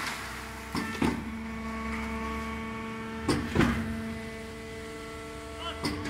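Linuo C3 concrete mixer-pump running with a steady hum, broken by pairs of sharp knocks that come about every two and a half seconds, three times.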